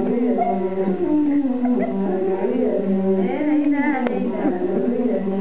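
Tuareg women singing in a group, with an imzad, a one-string bowed fiddle, sounding along beneath the voices. About three seconds in a high, quickly warbling voice rises over the song, and there is one sharp click just after four seconds.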